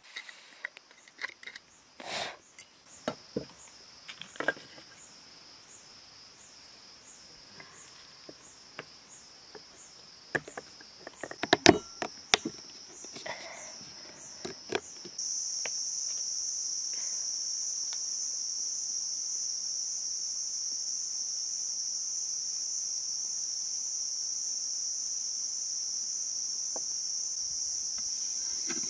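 A knife cutting and tapping into green bamboo makes a run of sharp knocks and scrapes, loudest just before halfway, over faint pulsing insect chirring. About halfway in, a steady, much louder high-pitched insect drone sets in.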